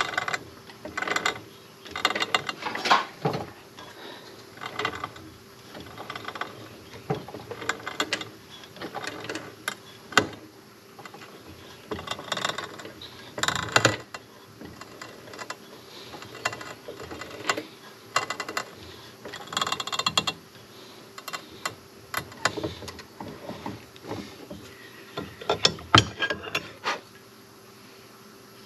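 Unpowered drill press turned slowly by hand, its bit cutting into a cast-iron engine block: irregular bursts of clicking and scraping, about one a second, that stop shortly before the end.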